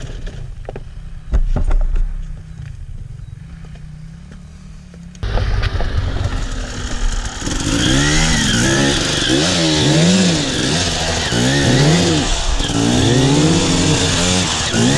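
Enduro dirt bike engine, faint and low with a few knocks at first. From about five seconds in it is much louder and is revved up and down in quick repeated surges as the bike is ridden up a rocky climb.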